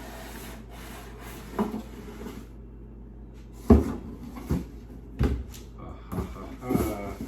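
Packaging and parts handled during an unboxing: a series of knocks and thumps, about six of them, the loudest a little past halfway, over a faint steady hum.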